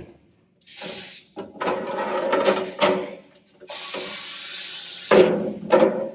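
A tire and wheel handled on a wheel lift and worked onto a balancer's shaft: scraping and clunks of rubber and metal, with a steady hiss of air for about a second and a half near the middle, then a sharp clunk.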